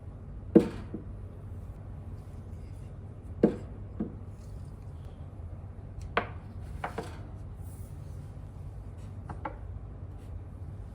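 Kitchen clatter from a cook working at a tabletop grill: about seven sharp knocks, the two loudest about half a second in and a few seconds later. They sound over the steady low hum of a running range hood fan.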